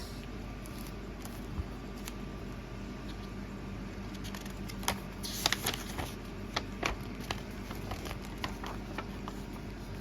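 Packaging and small accessories being handled: scattered light clicks and taps, with a short paper-like rustle and a cluster of clicks about five to six seconds in, over a steady low hum.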